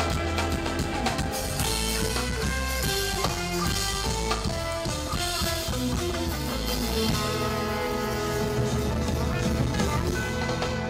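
Instrumental band music with drums, bass and guitar, without singing.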